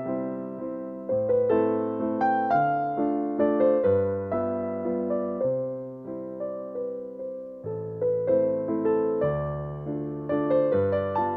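Background music: a slow solo piano piece, chords struck one after another and left to ring and fade.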